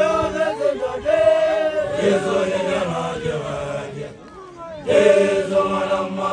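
A group of Basotho initiates (makoloane) chanting a song together, with many voices holding long notes in unison. The singing drops off briefly about four seconds in, then a new phrase starts loudly.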